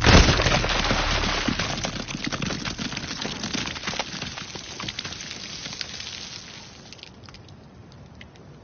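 A sudden loud wet burst, then a dense crackling spatter, like blood and flesh raining down, that thins out and fades over about seven seconds: a film gore effect of a body bursting apart.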